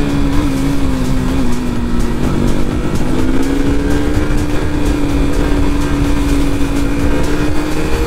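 KTM RC sportbike's single-cylinder engine running steadily at cruising speed, heard from the rider's seat over wind rumble. Its pitch dips slightly about two seconds in, then holds level.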